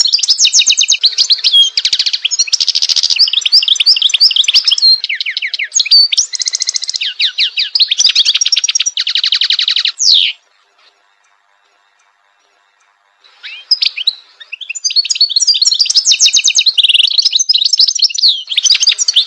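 European goldfinch singing: a long run of rapid, liquid twittering and trilled notes mixed with buzzy phrases, breaking off about ten seconds in and starting again some three seconds later.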